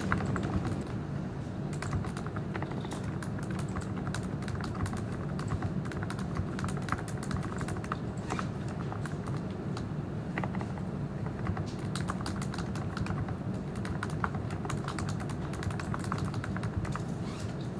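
Typing on a computer keyboard: a fast, irregular patter of key clicks over a steady low hum.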